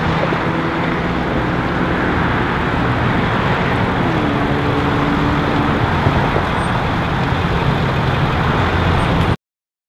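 Steady freeway traffic and idling vehicle engine noise, with a low engine hum throughout. The sound cuts off suddenly about nine and a half seconds in.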